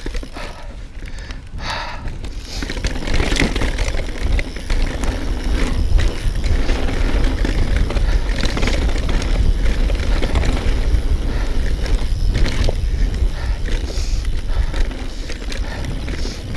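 Mountain bike rolling fast over a rough grass and dirt trail, with tyre noise, chain and frame rattle and wind buffeting the microphone. It gets louder about two and a half seconds in as the bike picks up speed. In the first two seconds the rider is breathing hard.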